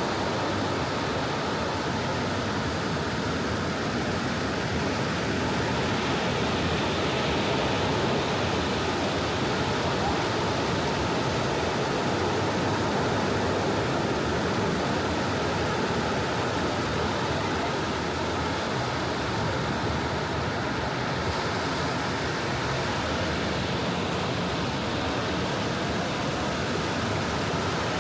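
Soft ocean surf washing onto a beach: a steady, even rush of water with little rise and fall.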